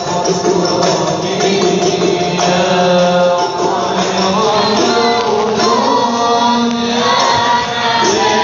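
Group of men chanting devotional Maulid verses together, with a steady beat of frame drums.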